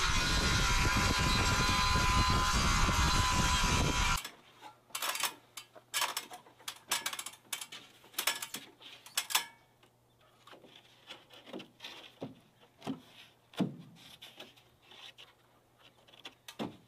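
Circular saw cutting an LP SmartSide engineered-wood siding panel: a loud, steady whine and rasp that cuts off abruptly about four seconds in. Then come scattered light knocks, taps and clatter as the panel is handled and set against the wall.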